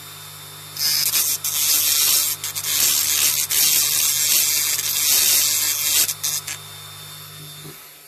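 Small handheld rotary drill running, its bit grinding into the metal of a diecast Dinky Toys dumper truck to cut away a crimped fixing. The motor hums steadily, and a harsh high grinding starts about a second in and comes and goes until about six and a half seconds. The motor stops near the end.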